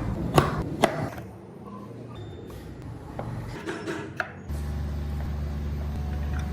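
Workshop sounds: a few sharp knocks and clicks, then a steady low hum that starts about two-thirds of the way in.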